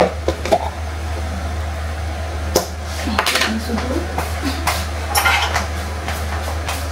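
Kitchen utensils and containers handled on a countertop: a few sharp clinks and knocks, clustered about three to five seconds in, over a steady low hum.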